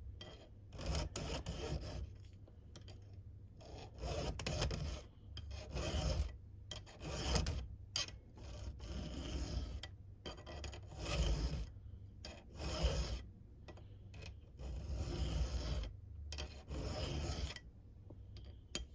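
Square (chisel) chainsaw file rasping across the steel cutter of a chainsaw chain, stroke after stroke about once a second, sharpening the tooth to a square-ground chisel edge.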